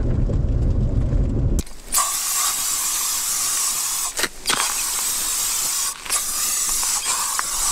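A car engine running with a low rumble cuts off about a second and a half in. Then DEET insect-repellent spray hisses out in long bursts, with two short breaks between them.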